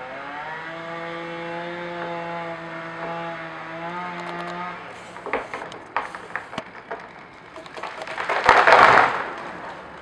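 A chainsaw runs at a steady high speed for about five seconds and then stops. A series of sharp cracks and snaps follows as the giant pine tree gives way, and near the end the tree crashes to the ground, a loud, heavy rush and crash of trunk and branches that is the loudest sound.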